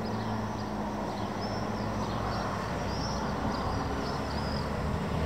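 Steady outdoor background noise, a low rumble and hiss, with faint high chirps around the middle.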